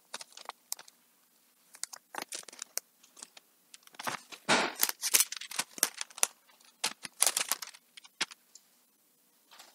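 Thin Bible pages rustling and flicking as they are turned by hand in short, irregular flurries while the reader leafs through to find a passage.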